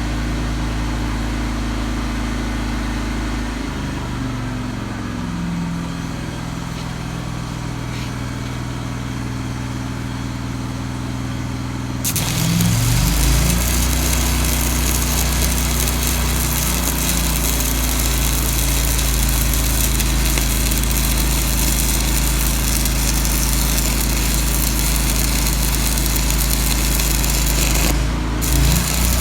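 Miller Trailblazer 325 EFI welder's engine running, then about twelve seconds in a stick-welding arc is struck with a 3/16 in. 5P+ (E6010) rod at 180 amps. The arc gives a steady, harsh crackling hiss, and the engine's tone rises and strengthens as it picks up the welding load. Near the end the arc breaks off for a moment and starts again.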